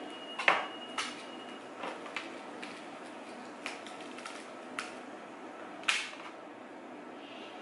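Scattered sharp clicks and taps of a kitchen knife and fingers working a jalapeño pepper while seeding it. The loudest click is about half a second in; another comes near six seconds as the knife is set down on a plate. A steady background hiss runs underneath.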